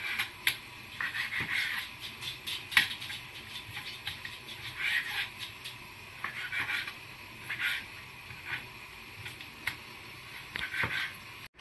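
Kitchen knife cutting raw chicken fillet on a wooden cutting board: irregular light taps of the blade on the wood and short soft slicing scrapes.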